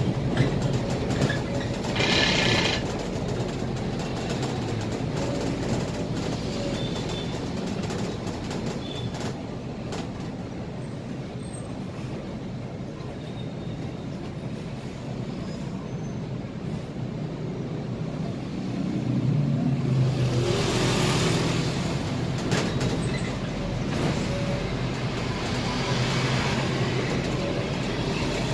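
Inside a Scania K320IA city bus on the move: steady engine hum and road noise. About two seconds in there is a brief high-pitched sound, and around twenty seconds in the engine and a hiss grow louder for a couple of seconds.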